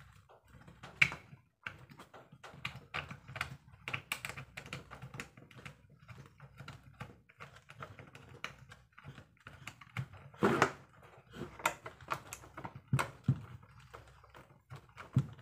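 Irregular small plastic clicks and taps as an action camera in its plastic housing is handled and fitted onto a bicycle helmet mount, with a sharper knock about a second in and a louder clatter about ten seconds in.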